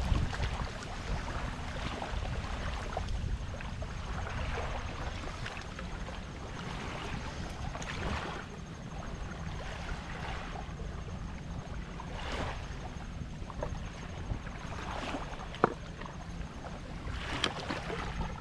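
Steady low rumble of wind on the microphone, with soft rushes of noise every couple of seconds and one sharp knock about three-quarters of the way through.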